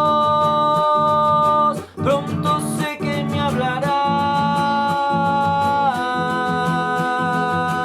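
Acoustic guitar strummed under a singer holding long sung notes. The held notes step lower a couple of times.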